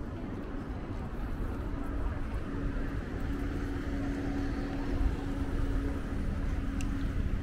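City street traffic: a steady low rumble with a vehicle engine's hum that swells a little in the middle.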